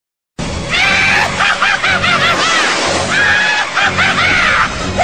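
Shrill, high-pitched voices in quick rising-and-falling cries over music, starting abruptly about half a second in.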